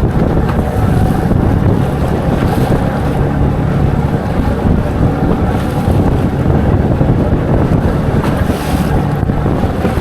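Small flat-bottom boat under way in choppy water: a steady motor hum under heavy wind rushing over the microphone and water washing against the hull.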